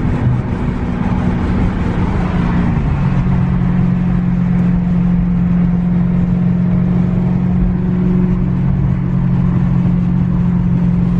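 Dodge Charger Hellcat's supercharged 6.2-litre Hemi V8 heard from inside the cabin, running at a steady engine speed. Its drone changes pitch about three seconds in, then holds steady.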